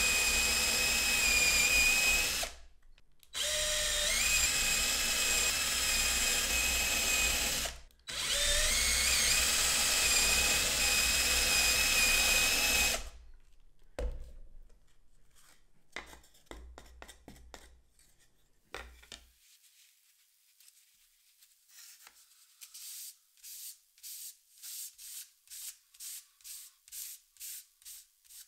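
Electric drill with a twist bit boring holes through a thin wooden board, running in three spells of several seconds each with a steady motor whine. After a few light knocks, folded sandpaper rubs back and forth over the board by hand in even strokes, about two a second, toward the end.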